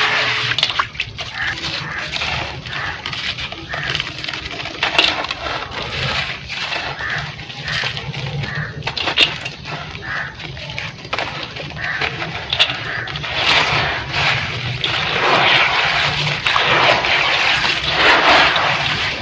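Chunks of red gritty dirt crumbling and breaking apart in water: a continuous wet crackle with frequent sharp cracks, louder near the end.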